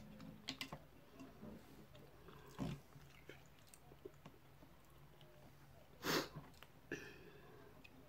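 Mussel shells clicking and scraping as the meat is picked out, with chewing and mouth sounds; a few scattered clicks and a short, louder noisy burst about six seconds in.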